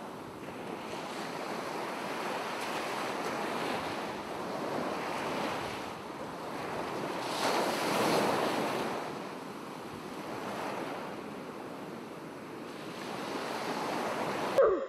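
Sea surf washing onto a sandy beach, swelling to a peak about eight seconds in and then ebbing.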